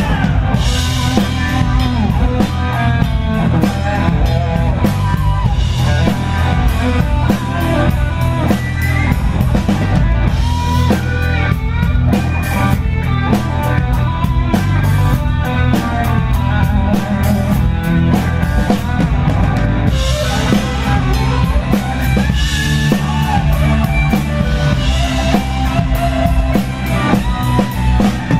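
Blues-rock band playing live: drum kit keeping a steady beat under electric guitar lines that bend in pitch.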